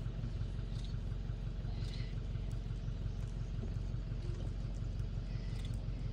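Vehicle engine idling: a steady low hum.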